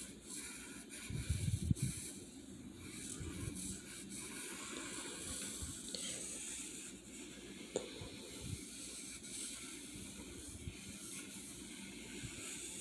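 Sharpie fine-point felt-tip marker gliding across paper while drawing one continuous line: a soft, steady hiss from the tip. A few low bumps about a second in.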